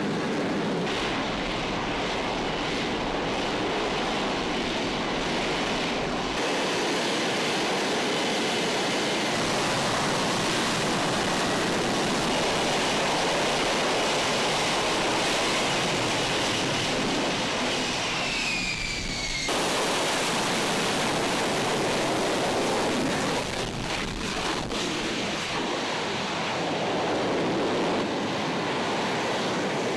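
F-35B Lightning II hovering for a vertical landing, its F135 jet engine and lift fan giving a loud, steady roar. About two-thirds of the way through, a high whine slides down in pitch, and then the roar changes abruptly.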